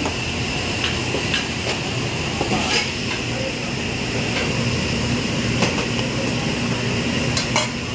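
Steady roar of a commercial wok range and its extraction hood, with scattered sharp clinks of metal utensils against woks and steel bowls.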